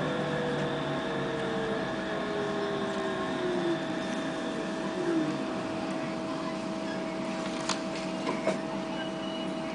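Cabin of a Bogdan trolleybus slowing in traffic. The electric traction drive's whine falls steadily in pitch over the first few seconds, over a steady electrical hum and road noise. A couple of faint clicks come near the end.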